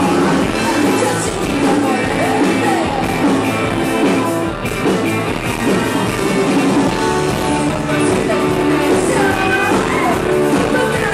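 Live rock band playing, with a singer singing into a microphone over electric guitar.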